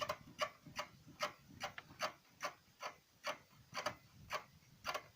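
VAZ 2108 suspension squeaking in short, regular squeaks, about two and a half a second, as the suspension moves. The owner puts it down to a worn rubber silent block on the "krab" bracket, which needs replacing.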